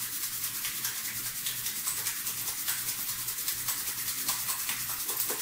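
A pair of hands rubbed quickly together, palm against palm, to warm them: a steady, fast, dry swishing.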